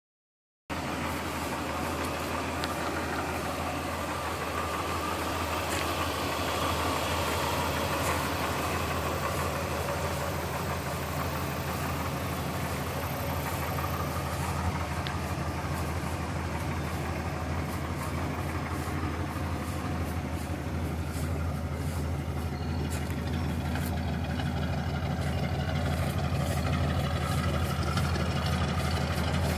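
A 1974 dump truck's engine idling steadily, with an even low note. It grows a little louder near the end as the exhaust pipe comes close.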